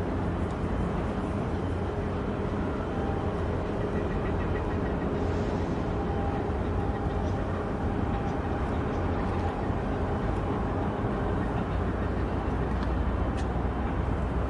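Steady low diesel rumble of a harbour tug and cargo ship working in port, with a faint hum on top and a faint tick near the end.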